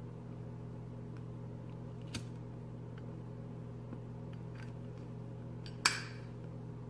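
A tobacco pipe being lit with a lighter and drawn on, with faint small ticks and puffs over a steady low hum. There is a small click about two seconds in and a sharper click near the end.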